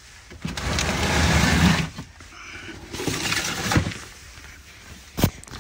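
Rustling and scraping handling noise as the camera is moved about, with one sharp click near the end.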